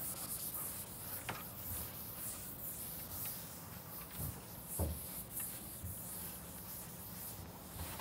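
Faint rubbing and scratching strokes of a lecturer drawing a diagram, over a quiet room hiss, with a few light ticks and one soft knock about five seconds in.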